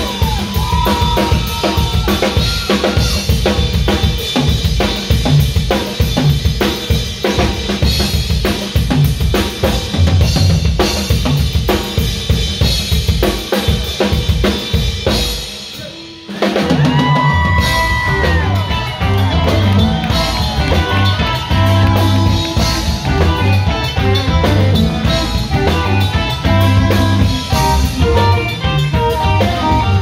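Live blues-rock band with a drum kit played hard, snare, kick and rimshots to the fore and a few electric guitar notes over them. About halfway the sound dips briefly, then the full band comes in with electric guitars and bass.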